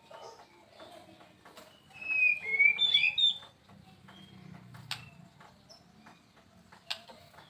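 White-rumped shama (murai batu) singing: a loud phrase of whistled, gliding notes about two seconds in, lasting about a second and a half, with softer chirps and two sharp clicks around it.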